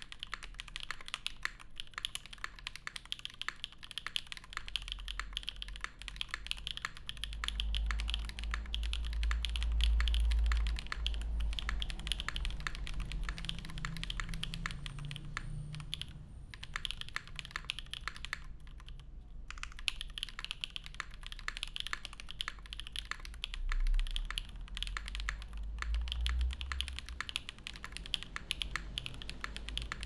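Steady fast typing on a gasket-mounted TYP 65+ mechanical keyboard with lubed Gateron Pure Berry switches, a carbon fiber plate and GMK keycaps: a dense stream of key clacks. The typing stops briefly twice around the middle. A low rumble swells underneath at times.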